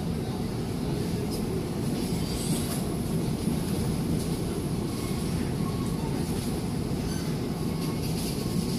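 Cabin noise aboard the Euskotren UT-901 electric multiple unit under way: a steady low rumble of the wheels running on the track, with a few faint clicks.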